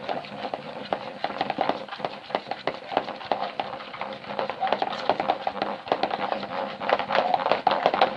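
A spoon stirring a freshly activated slime mixture of glue and shaving foam in a bowl, giving a rapid, irregular run of sticky clicks and crackles.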